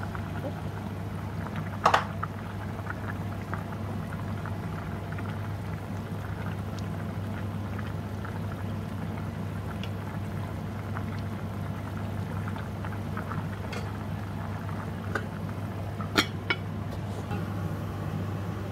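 A pot of curry simmering, with small bubbling pops over a steady low hum. Two sharp knocks stand out, one about two seconds in and one near the end.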